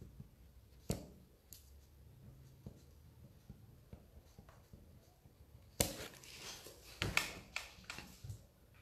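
Handling noise in a quiet small room: a few sharp clicks and taps, one about a second in, then a denser run of clicks and rustling from about six to eight seconds in.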